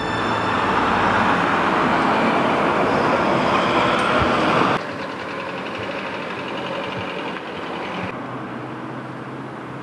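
Outdoor street ambience: an even rush of passing road traffic, which drops abruptly to a quieter background hum about five seconds in.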